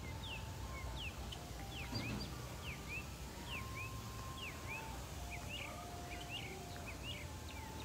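Small birds chirping: many short, quick downward-sliding chirps, a few each second, over a low steady background rumble.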